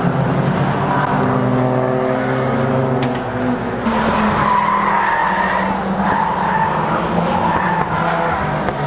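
Car engines running and revving, with tyres skidding.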